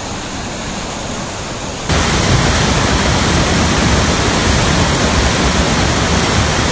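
Muddy floodwater in a channel, rushing steadily. About two seconds in it jumps abruptly to a louder, deeper rush of a brown flood torrent pouring through a walled channel under a bridge.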